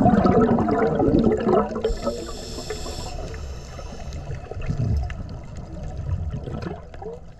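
A scuba diver's exhaled bubbles from the regulator gurgling and rushing, heard underwater. Loudest in the first couple of seconds, then fading away toward the end.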